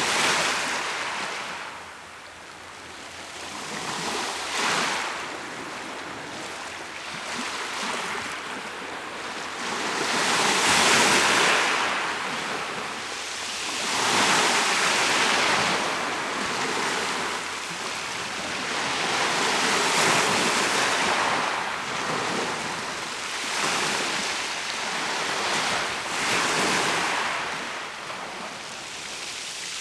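Mediterranean Sea waves breaking and washing on the shore, the surf swelling and fading every few seconds, with a few stronger surges. Some wind on the microphone.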